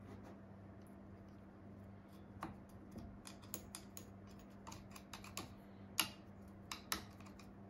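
Scattered light clicks and taps from hands handling the metal parts of a sewing machine while oiling it, starting a couple of seconds in, with two sharper clicks near the end.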